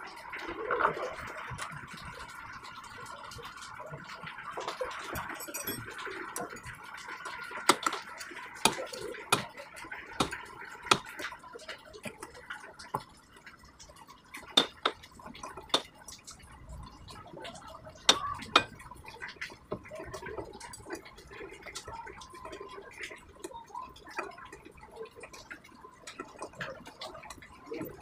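Metal tool clinks and clicks from a T-handle socket wrench turning and knocking against bolts and engine parts while a scooter's fuel-injection parts are refitted, coming at irregular moments, with a few sharper clinks in the middle.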